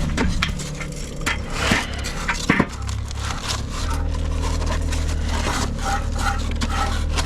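Scraping and a string of sharp knocks and clicks, as from handling building materials, over a steady low hum.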